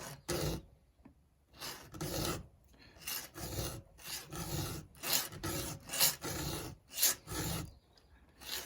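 A steel file being drawn by hand across a square ground chainsaw chain's cutter tooth to sharpen it. It makes a dozen or so short, rasping strokes at an uneven pace, with a brief pause about a second in.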